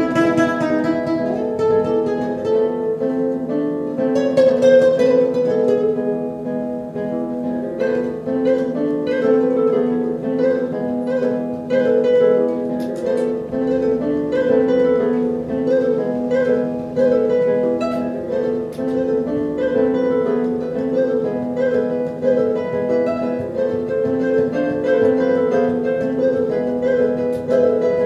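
Nylon-string classical guitar played solo with the fingers, improvising in a flamenco style: fast repeated plucked notes ringing over steady held pitches, with a sharp strummed chord about four and a half seconds in.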